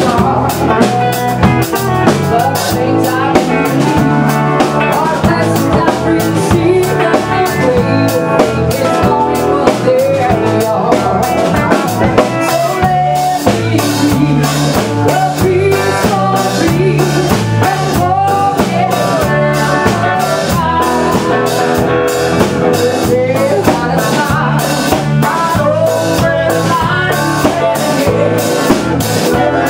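Live band song: a woman singing lead over strummed acoustic guitars, with drums keeping a steady beat.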